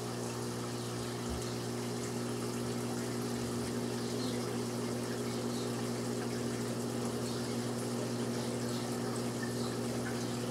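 Aquarium filter pump running: a steady motor hum over the even rush of circulating water.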